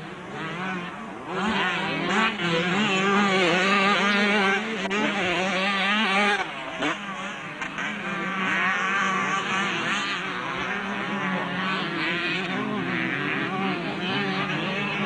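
Several motocross bikes racing on a dirt track, their engines revving up and down as the riders accelerate and back off through the corners, loudest a couple of seconds in.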